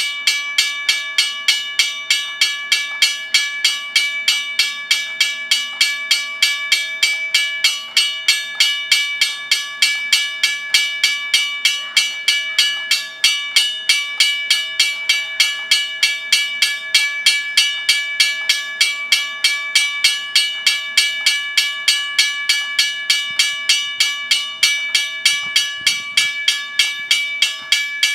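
Railroad crossing bell ringing: rapid, evenly spaced strikes, each ringing on. It starts suddenly and keeps an unbroken, even beat.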